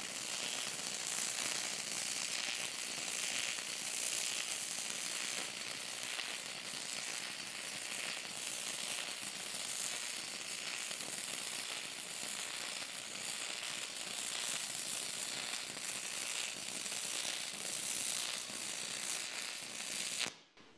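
Stick-welding arc of a 6011 rod burning on 60 Hz AC from an inverter welder: a steady buzzing arc that runs smoothly without going out, then stops abruptly just before the end as the rod is pulled away. The welder itself is silent; the buzz is all from the arc.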